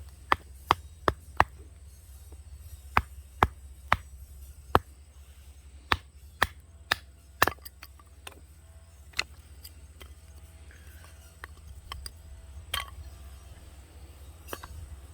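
Firewood being chopped into kindling, sharp wooden knocks: a quick run of about five strikes at the start, then more strikes in small groups, growing sparser after the middle.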